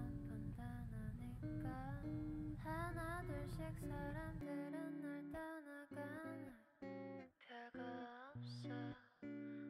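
Background music with guitar: a soft song with a melody over chords.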